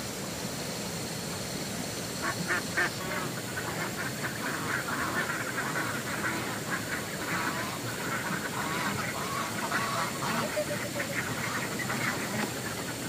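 A flock of ducks quacking in a dense, continuous chatter, starting about two seconds in, over a steady background hiss.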